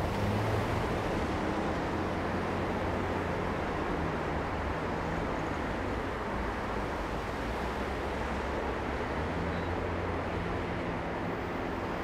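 Steady city street traffic at an intersection: cars passing through with a low hum of engines over a constant wash of tyre and road noise.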